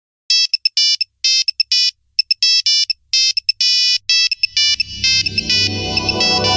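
Nokia 3310 ringtone: a monophonic melody of short electronic beeping notes. From about four and a half seconds in, a low swell builds up underneath it, like the build-up of an electronic remix.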